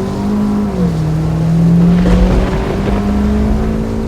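An engine running, its pitch holding, easing down and climbing again as its speed changes, over a low rumble.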